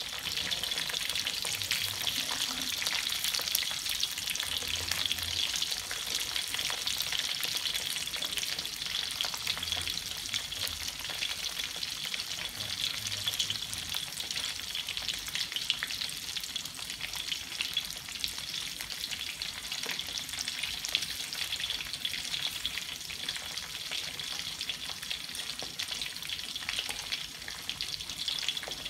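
Chicken pieces deep-frying in hot oil in an aluminium wok: a steady, dense sizzle with constant fine crackling of popping oil.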